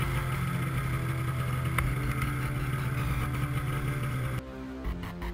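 Arctic Cat snowmobile engine running at a steady, even pitch, with a single click about two seconds in. A little over four seconds in it cuts off abruptly and music with a beat takes over.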